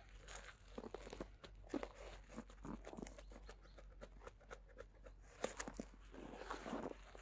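Knife cutting through the singed, hair-burnt hide of a moose head: faint, irregular crackling crunches and clicks as the blade saws and prises along the skin, with a few sharper ticks.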